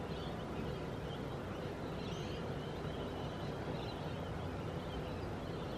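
Steady outdoor background noise, a low even rumble, with faint high chirps here and there.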